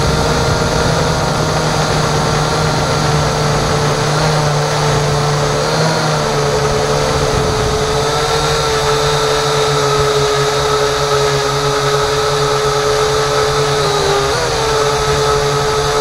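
Remote-controlled aircraft's motor and propeller running steadily, heard close from its onboard camera, a droning hum that wavers briefly in pitch a few times, with air rushing over the microphone.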